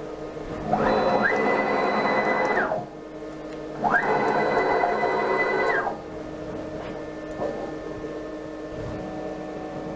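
6040 CNC router's stepper motors jogging the spindle across the bed in two separate moves of about two seconds each. Each move is a whine that rises quickly as the axis accelerates, holds steady while it traverses, then falls away as it stops.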